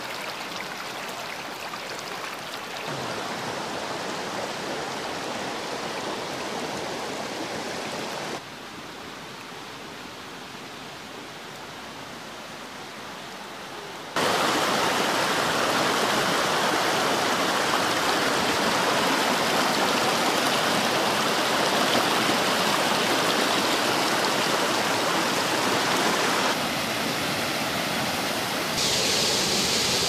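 Water rushing over a rocky stream bed, a steady rush that jumps abruptly much louder about halfway through as white-water rapids below a weir take over. Near the end comes water gushing from an outlet in a concrete dam wall.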